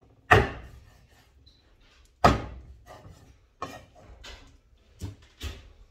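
Meat cleaver chopping raw meat on a wooden cutting board: two heavy chops about two seconds apart, then several lighter ones.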